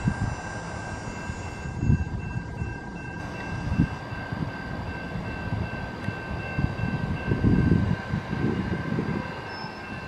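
A train running past, a low uneven rumble that grows louder about seven seconds in, with a steady high thin whine above it.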